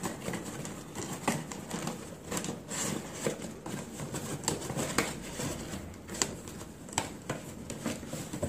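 Cardstock panels of a handmade explosion-box album being handled, folded and fitted together: scattered light taps and rustles of stiff paper, several times a second.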